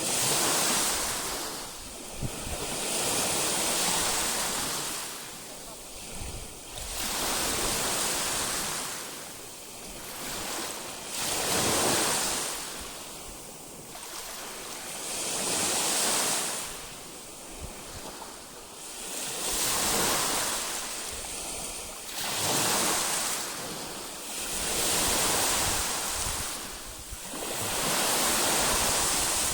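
Baltic Sea waves breaking and washing ashore. Each wave comes as a swelling rush that fades again, with a new surge about every three to four seconds.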